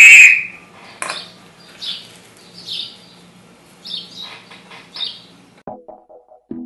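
A loud high tone that dies away just after the start, then a bird chirping in short falling calls about once a second over a low hum. Electronic music with short notes starts near the end.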